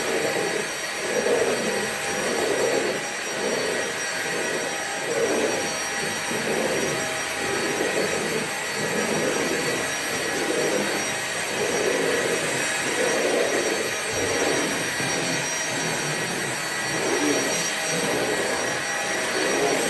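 Vacuum cleaner running steadily, a constant motor whine over a rushing airflow that swells and fades about once a second.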